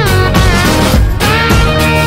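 Loud rock music, a song track with guitar.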